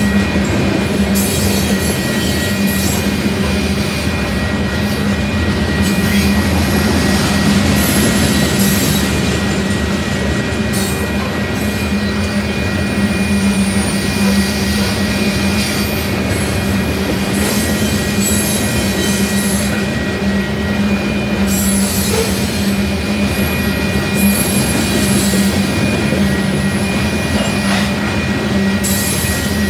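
Loaded covered hopper cars of a freight grain train rolling past at speed: a steady, unbroken rumble and clatter of steel wheels on rail, with a thin high tone held over it.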